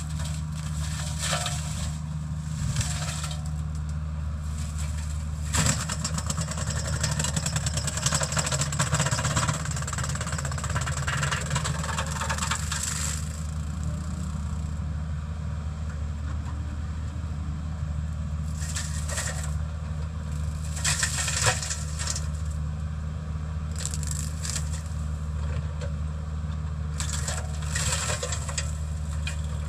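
Kubota mini excavator's diesel engine running steadily while its Rockhound 40EX hydraulic flail mulcher head spins and shreds brush and weeds. The shredding comes in rough, crackling bursts, heaviest and longest from about 6 to 13 seconds in, with shorter bursts near 19, 21 and 28 seconds.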